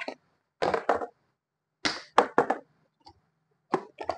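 Plastic parts of a juicer mixer grinder being handled and fitted: short clusters of sharp clicks and knocks, four times.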